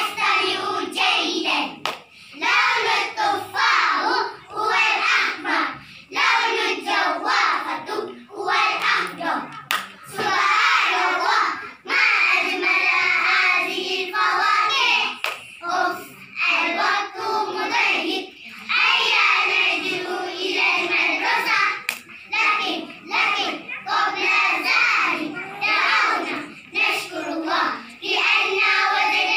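A group of young children chanting an Arabic recitation in unison, in a sing-song voice, with hand claps cutting through it again and again.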